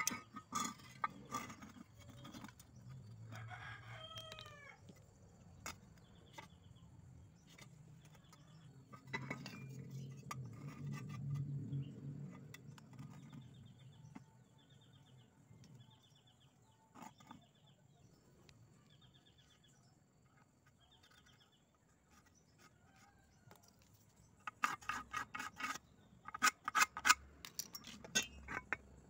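A rooster crows once in the background about three seconds in, and short repeated bird chirps come and go. Steel tube pieces click as they are handled, ending in a quick run of ringing metal-on-metal knocks near the end.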